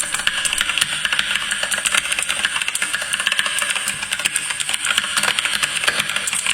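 Fast continuous typing on a mechanical keyboard with clicky blue switches: a dense, unbroken stream of sharp keystroke clicks.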